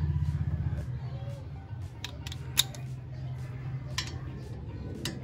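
A hand ratchet clicking a few separate times while driving the brake caliper's 14mm bolt, the sharpest click about halfway through. Under it runs a low steady hum that is loudest in the first second.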